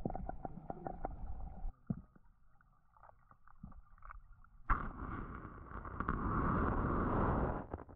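Muffled sound of creek water heard through a GoPro's waterproof housing on a gravel creek bed: scattered small clicks and knocks at first, then about halfway through a rushing of water starts suddenly and runs for about three seconds before dropping away near the end.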